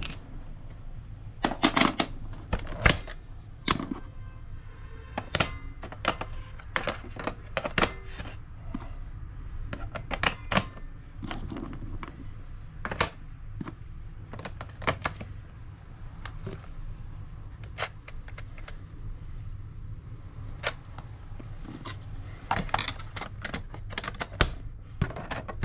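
Irregular sharp plastic clicks and knocks from a microchip cat flap being handled and fitted in a glass door panel, in small clusters with gaps between, over a steady low hum.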